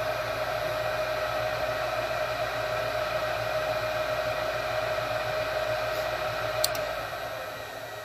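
Gas furnace draft inducer motor running with a steady whir and hum; a sharp click near the end, after which it starts to wind down. The furnace is shutting itself off at the point where the gas valve should open, so the burner never lights: the no-heat fault.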